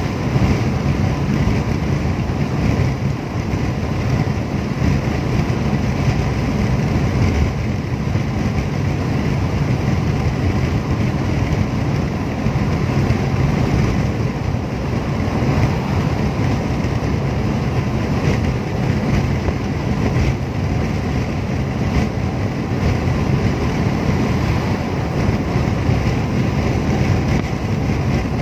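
Steady road noise heard inside a car's cabin at expressway speed: a low rumble of tyres and engine with wind noise over it.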